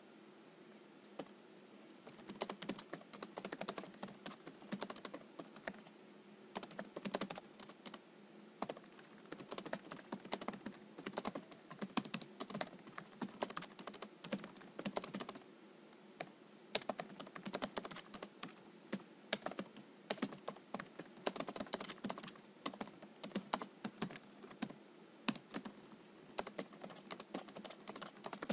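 Typing on a computer keyboard: fast runs of key clicks with short pauses between them, starting about two seconds in. A faint steady low hum lies beneath.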